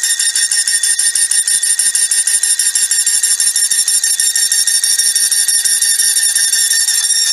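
Timken-type lubricant tester screeching as its test bearing rubs on the spinning wheel in the oil bath under dead-weight load: a steady, loud, high-pitched squeal with a fine rapid flutter. The squeal is metal rubbing on metal as the oil film breaks down under load.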